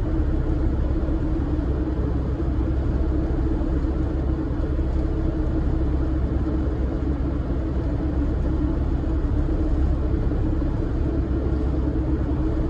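Steady engine and road rumble of a camper van being driven, heard from inside the cabin: a deep even rumble with a steady hum above it.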